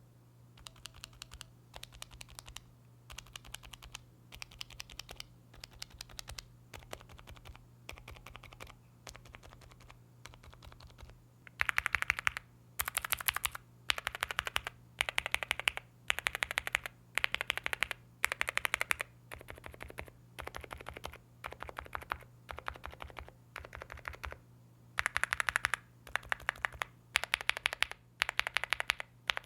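Gateron mechanical keyboard switches in a keyboard, typed in quick bursts of rapid keystrokes, about one burst a second. The first bursts are on bare switches without keycaps. About 11 seconds in, keycaps are fitted and the clacks become much louder and fuller. A faint steady hum runs underneath.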